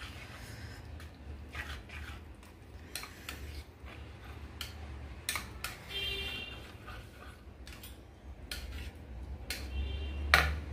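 Wire whisk stirring curd in a ceramic bowl. The metal wires clink and tap irregularly against the bowl, and a couple of the clinks ring briefly.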